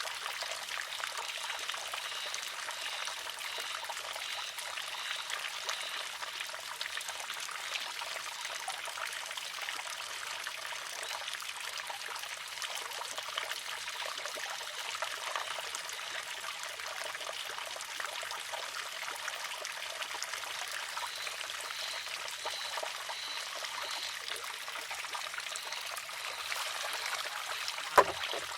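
Steady trickle of water running through a wooden shishi-odoshi (water-driven deer scarer). Near the end comes one sharp clack as the filled arm tips over and strikes its rock.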